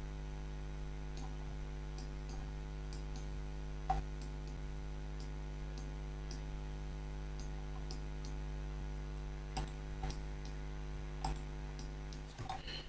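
Faint, scattered computer clicks from a mouse and keyboard in use, about one or two a second, over a steady low electrical hum.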